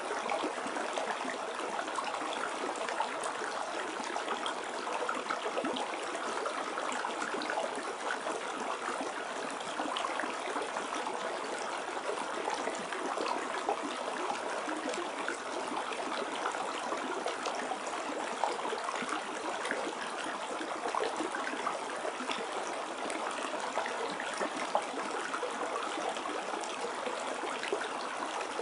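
Steady trickling and babbling water, like a small stream, with fine splashing ticks throughout.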